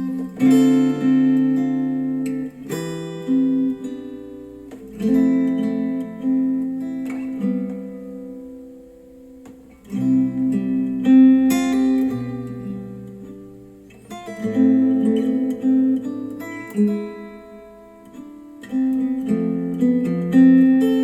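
Acoustic guitar music played back through KEF Q350 bookshelf speakers: strummed and plucked chords struck every few seconds, each ringing out and fading, with quieter stretches about eight and seventeen seconds in.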